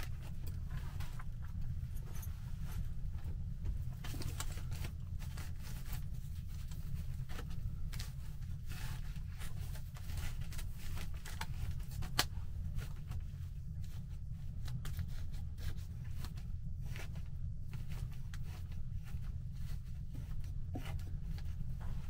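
Plastic sheeting crinkling and rustling in irregular bursts as it is pulled and tucked along a ceiling beam, over a steady low rumble.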